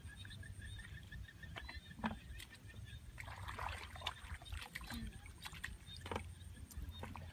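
Faint sloshing and squelching of shallow muddy water, with scattered small clicks over a low rumble.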